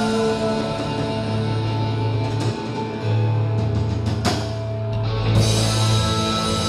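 Live band music with guitar: held notes over a steady bass line, no singing.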